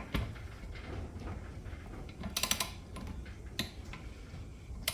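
Torque wrench ratcheting on beadlock ring bolts, tightening them to 10 foot-pounds in a crisscross pattern: a quick burst of clicks about halfway through, a single click, then another burst at the end.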